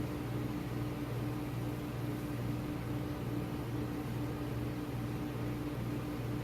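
Steady low hum of a running machine, with a drone that pulses evenly about three times a second over a faint hiss.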